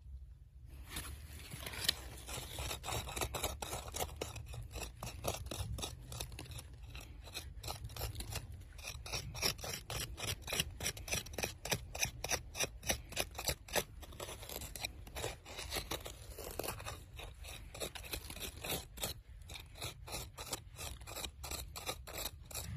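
Small hand digging tool scraping into packed soil in quick, repeated strokes.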